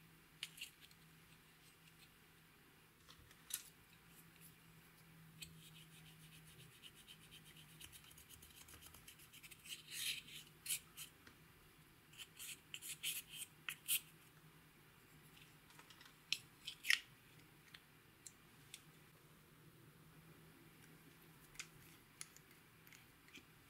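Faint small-object handling sounds: a few sharp clicks from a plastic eyeshadow compact, and a wooden stick scraping pressed eyeshadow powder out of its pan in fast, fine scratchy strokes for several seconds in the middle.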